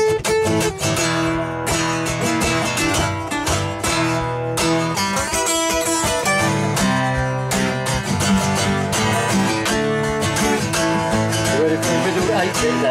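Two acoustic guitars played together, strumming chords in a steady rhythm.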